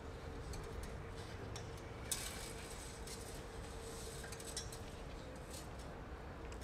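Faint courtyard ambience with a steady low hum and small scattered clicks, as objects are handled on a wooden rack; a sharp knock about two seconds in is followed by about two seconds of high rustling.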